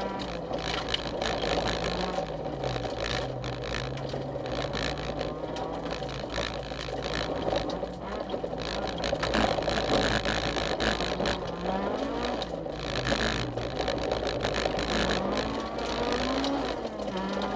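Honda CRX rally car's engine heard from inside the cabin, its revs dropping and climbing several times through gear changes at speed, with tyres on loose gravel and stones rattling against the body.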